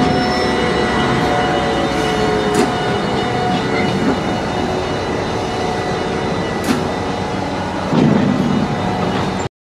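Stadler Eurodual locomotive and its loaded freight wagons rolling along the track: a steady rumble with a constant engine hum and a couple of sharp clicks. The sound cuts off suddenly near the end.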